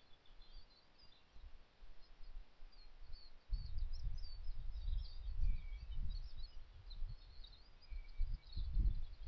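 Outdoor ambience of small birds calling faintly in the background, with a low, gusty rumble of wind on the microphone starting about three and a half seconds in and surging again near the end.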